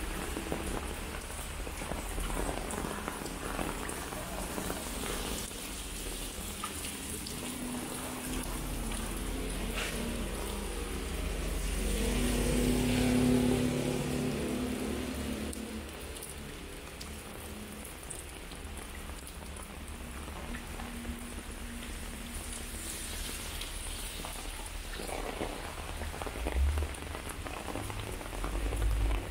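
Steady rain falling on a wet street and pavement. About halfway through, a low hum swells and fades.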